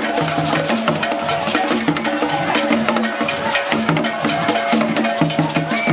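Percussion-driven music: drums and sharp wood-block-like clacks keep a steady beat over a repeating low pitched figure.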